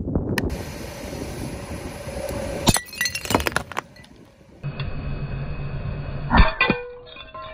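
Ceramic cups cracking and breaking under a car tyre: a cluster of sharp cracks a few seconds in, and the loudest crack later, followed by clinking of broken pieces.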